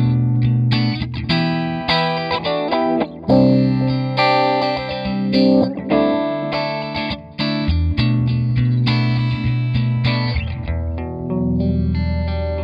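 Clean electric guitar played through an RFO Electronics Waterfall vibe pedal on its chorus setting, with the depth almost full and the speed almost off. It plays a run of single notes and chords that change about every second.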